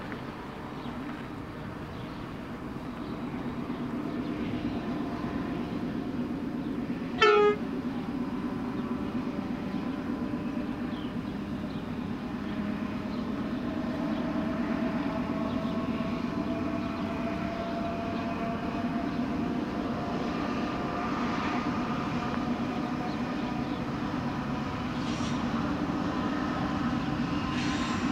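Pacific National NR class diesel-electric locomotives hauling a long freight train, their engines' steady rumble growing louder as the train approaches. A brief horn toot sounds about seven seconds in.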